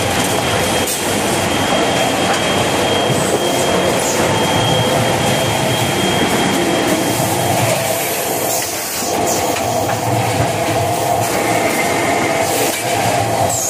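Kitchen towel paper roll production line running: a loud, steady mechanical clatter and rattle of the machinery and conveyors. A thin steady high whistle sounds over it and stops about halfway through.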